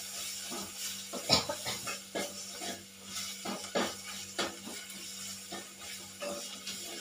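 A metal spoon stirring and scraping in an aluminium pot, clicking irregularly against its sides, over a steady sizzle of onions and ginger-garlic paste sautéing.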